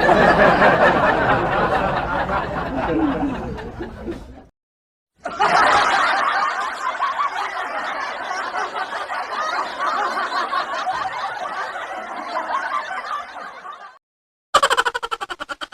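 Stock laughing sound effects played one after another: a laugh that fades away over about four seconds, a short silent gap, then a longer laugh lasting about nine seconds, and near the end a short laugh of quick, rapid pulses begins.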